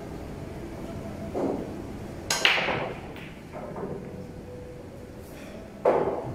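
Nine-ball break shot: the cue ball cracks into the racked pool balls about two seconds in. Lighter clacks of balls colliding follow as the rack spreads, with another sharp knock near the end.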